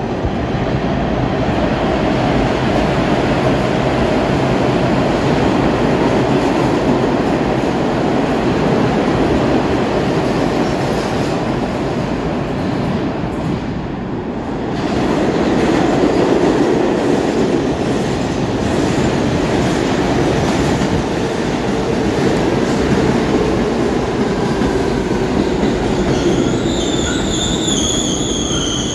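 New York subway trains rumbling through the station: a vintage green-painted train pulls out, and from about halfway a second train comes in. Near the end its steel wheels squeal in two high, wavering tones.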